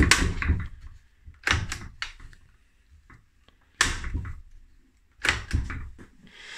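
Plastic-bodied chainsaw knocking and clattering against a wooden workbench as it is gripped by its top handle and moved: four bursts of knocks with a dull thud under each, about one and a half seconds apart.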